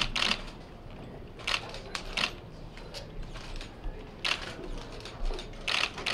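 Camera shutters clicking in irregular bursts and quick runs, as several still cameras fire at once.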